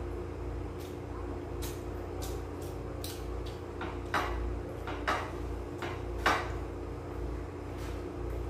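Spoon and fork clinking and scraping against a plate during eating, with three sharper clinks in the second half, over a steady background hum.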